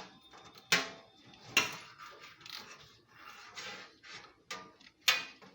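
Hard faucet parts being handled and set down: sharp clacks about one second in, again half a second later and once more near the end, with softer scraping and rustling between.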